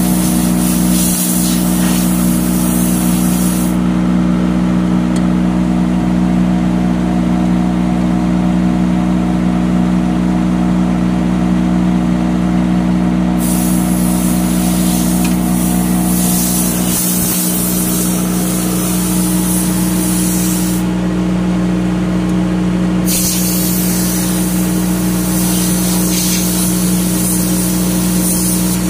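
Generator set engine running steadily at about 1800 rpm, an even, unchanging hum.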